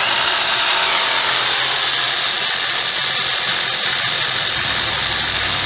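Sawzall reciprocating saw running steadily at full speed, its trigger held by a pulled paracord line.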